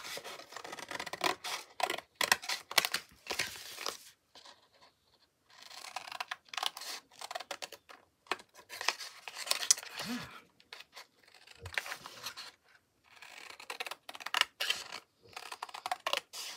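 Thin paperboard candy box being pulled apart at its glued seams and flattened: a run of sharp crackles, scrapes and scratches, with two short pauses.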